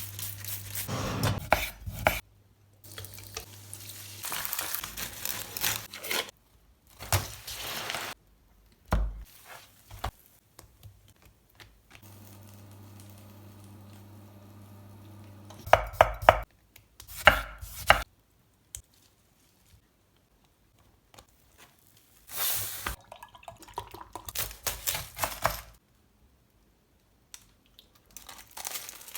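Close-up kitchen sounds while making a sandwich from a crisp loaf: a knife cutting and crackling through crusty bread, and pans and utensils clattering. They come in short separate bursts with quiet gaps between.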